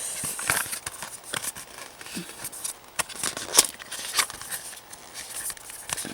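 A small cardboard product box being opened and its paper inserts handled by hand: rustling and light crinkling with scattered taps and clicks.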